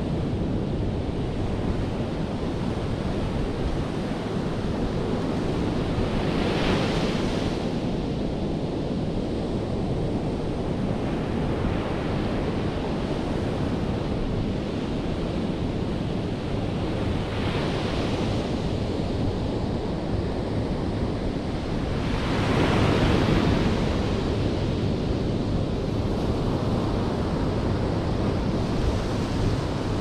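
Ocean surf breaking on a sandy beach: a continuous wash of waves, with louder breakers about a fifth of the way in and just past the middle, and the biggest one about three quarters through.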